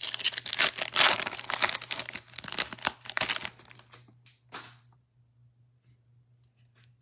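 A trading-card pack's wrapper being torn open and crinkled: dense crackling and tearing for about three and a half seconds, then a couple of brief rustles.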